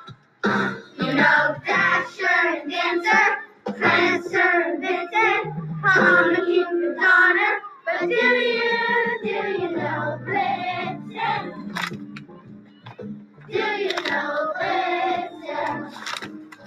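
A song with singing, played as music, the voices sounding like children's; the singing thins out briefly about two-thirds of the way through.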